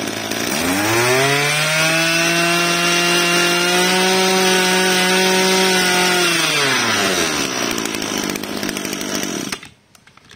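Small 26 cc two-stroke brush cutter engine running. About half a second in it revs up and holds a steady high speed, drops back to idle after about six and a half seconds, and stops abruptly near the end.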